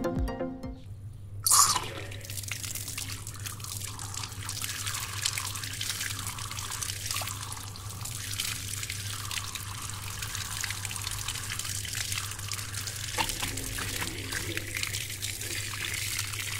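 Water running from a plastic tap and splashing onto a hand. It starts suddenly about a second and a half in, then runs steadily, with a low hum underneath.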